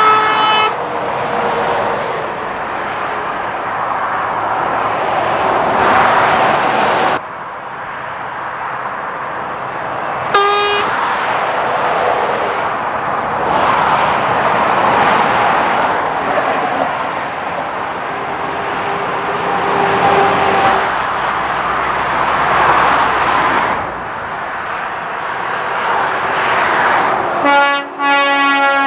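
Lorries and other road traffic passing: a steady wash of tyre and engine noise that swells and fades as vehicles go by. Short horn toots sound at the start and about ten seconds in, and a longer horn blast comes near the end.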